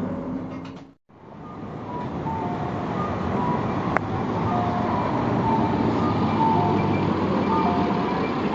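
City bus left-turn warning chime: a two-note 'papon' chime, high then low, repeating from the bus's exterior speaker over the engine and traffic noise. It is played by the Neptune voice-synthesis announcement unit for as long as the left turn signal is on. A brief dropout comes about a second in, and a single click about four seconds in.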